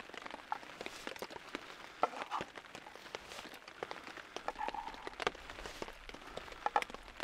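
Light rain falling in scattered pattering drops, mixed with soft clicks and scrapes of a knife and fingers gathering chopped chili off a wooden plate.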